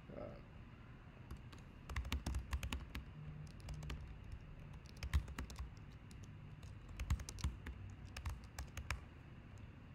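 Typing on a computer keyboard: irregular runs of keystrokes that start about two seconds in and stop shortly before the end.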